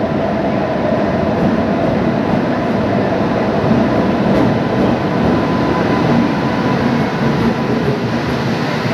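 Indian Railways WAP-7 electric locomotive and its passenger coaches rolling past along a station platform: a loud, steady rumble with no let-up.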